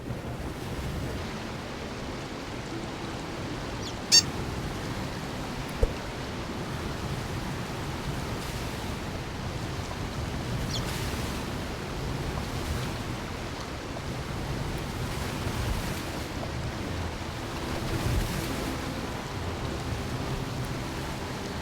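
Steady rushing noise, with two sharp clicks about four and six seconds in.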